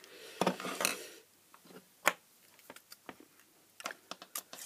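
White plastic bayonet lampholder, screw adaptor and LED lamp base being handled on a tabletop: a rustling, sliding noise for about the first second, one sharp click about two seconds in, then several light clicks and taps of plastic parts being fitted together near the end.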